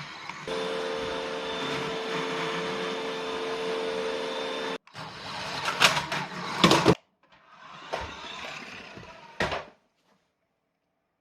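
Small electric motor whirring steadily for about four seconds, then cut off abruptly, followed by two shorter stretches of whirring broken by several sharp knocks and clatters.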